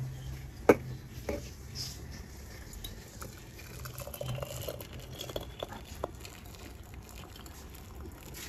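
Milky tea being poured from an aluminium saucepan through a wire-mesh strainer into a cup: a faint, steady trickle with light metallic ticks. A sharp clink of metal on metal comes about a second in and is the loudest sound.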